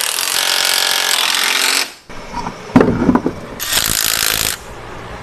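Impact wrench running in a fast rattle for about two seconds while bolts of a new lower control arm are driven in, then a couple of metal clunks and a second, shorter burst from the tool near the end.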